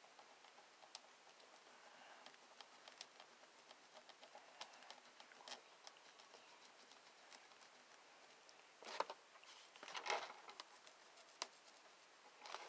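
Faint scratching and tapping of a pen scribbling on a foam plate as a small circle is coloured in, with a few louder scratchy strokes in the last few seconds.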